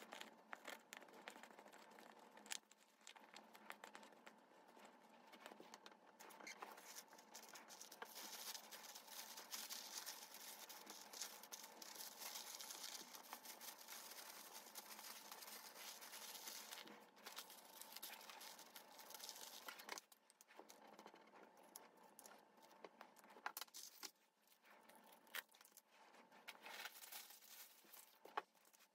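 Soft packing sounds: a cloth wiping a clear plastic phone case, then thin paper being folded and wrapped around it with crinkling and rustling, loudest in the middle. Small taps and clicks of the case being handled come through near the end.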